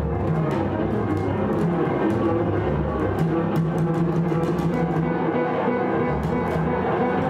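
Live trio music of upright piano, viola and double bass: dense low bowed string tones, with a held low note from about three to five seconds in, and many short sharp clicks scattered over the top.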